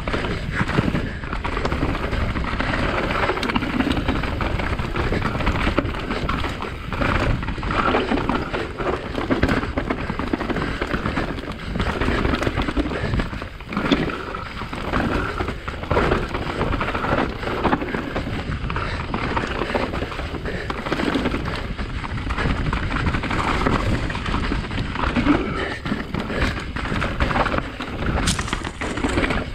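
Specialized Enduro mountain bike descending a loamy dirt trail: tyres rolling over dirt and wind on the microphone, with frequent knocks and rattles from the bike over bumps and a sharp click near the end.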